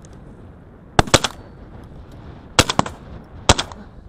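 Shotgun fired at ducks in flight: a quick pair of sharp shots about a second in, then another shot with smaller cracks after it, and one more shot near the end.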